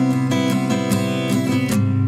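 Background music: strummed acoustic guitar playing steady chords.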